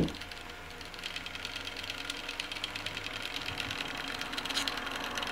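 The two small stepper motors of a mini laser projector, driving its mirror as it draws shapes in automatic mode, buzz with a rapid fine ticking over a few faint steady whines. A single click comes right at the start.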